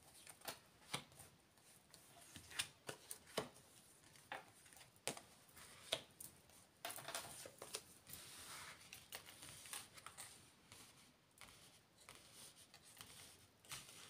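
Oracle cards being dealt one at a time onto a cloth mat: faint, irregular taps and card-on-card flicks, with a longer soft sliding sound in the middle.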